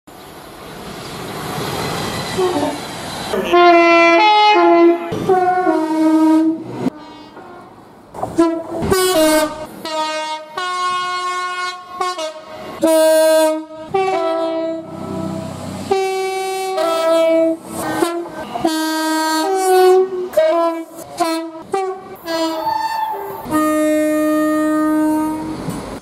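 A rush of train noise for the first few seconds, then a string of passenger-train horn blasts, short and long, many sounding two notes in turn. The blasts are separated by sudden cuts between clips.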